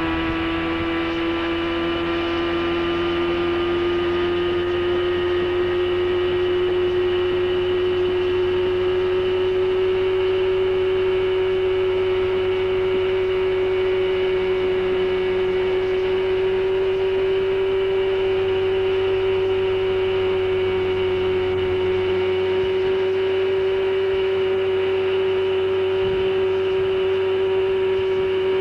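Tow boat's engine running steadily at skiing speed, its pitch rising a little over the first few seconds and then holding, over a rush of water and wind.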